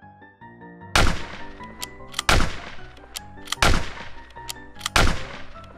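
Four gunshot sound effects, evenly spaced about a second and a third apart, each with a short ringing tail, over background music.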